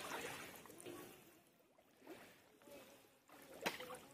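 Pond water splashing and sloshing in uneven swells as a person wades through it waist-deep, with one sharp short tap a little before the end.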